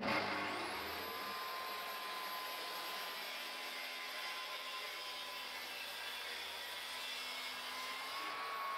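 Festool TS55 plunge-cut circular saw, mounted upside down as a table saw, starting with a sudden whine that climbs in pitch within the first second, then running steadily as its blade rips along a wooden slab. The pitch lifts slightly near the end.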